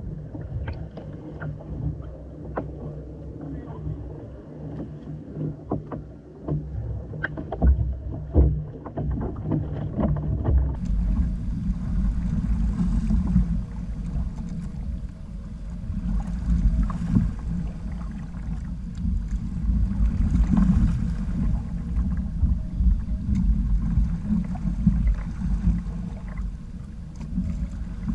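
Water slapping and lapping against the hull of a Hobie sailing kayak, with scattered small clicks. About eleven seconds in it changes to a steady rush of wind on the microphone and water running along the hull as the kayak sails through chop.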